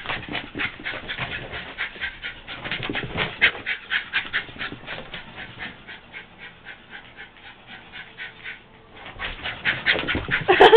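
A dog panting hard and fast, about five or six breaths a second, after running after a laser pointer. The panting eases in the middle and grows stronger again near the end.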